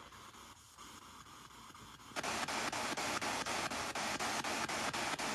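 Spirit box sweeping through radio stations, starting about two seconds in: steady radio static chopped by quick clicks, about six a second, as it scans. Before it there is only a faint hiss.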